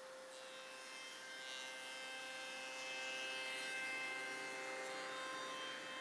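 Woodworking machine with a power feeder running with a steady whine at several pitches, getting somewhat louder through the middle as a piece is fed through to cut a slot.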